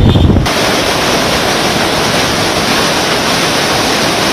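Muddy floodwater of the Godavari river rushing and churning in a steady roar. About half a second in, the sound changes from a deep rumble to a brighter, even hiss of water.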